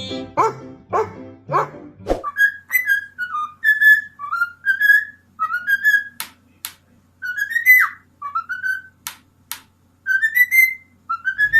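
A dog whining: short high-pitched calls that rise and fall, coming in quick runs with sharp clicks between. Music plays under the first two seconds, then stops.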